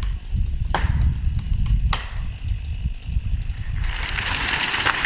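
Huge sawtooth oak giving way after the felling cut: the wood cracks with sharp snaps about one and two seconds in, then the crown comes down with a loud rushing crash through its branches from about four seconds in.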